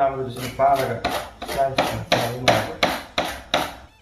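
Cucumber being slid back and forth over a handheld plastic vegetable slicer, in an even run of strokes about two or three a second.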